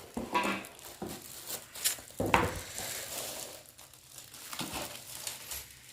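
Plastic packaging crinkling and rustling in irregular handfuls as a wall clock is unwrapped, loudest a little over two seconds in and fainter near the end.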